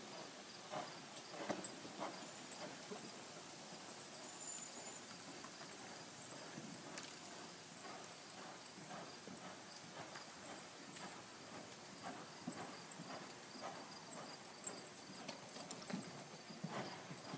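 Hoofbeats of a ridden sorrel stallion on the soft dirt footing of an indoor arena: a faint, irregular patter of hoof strikes, a little louder about a second in and again near the end.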